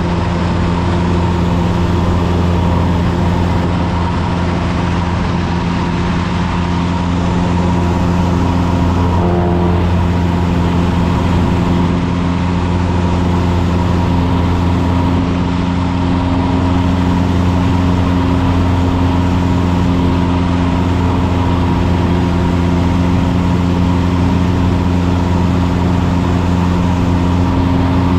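Single-engine piston airplane's engine and propeller droning steadily from inside the cabin in level cruise, the pitch holding constant.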